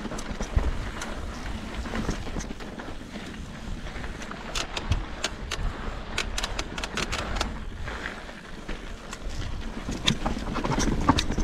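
Mountain bike riding down a rough trail: wind rushing over the microphone with a low rumble, and sharp clicks and rattles from the bike over rocks, thickest in the middle.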